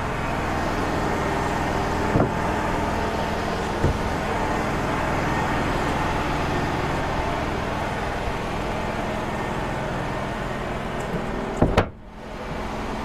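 Wood-Mizer LT35 sawmill engine idling steadily, with two light knocks in the first four seconds and a sharp clunk about twelve seconds in, after which the sound dips for a moment.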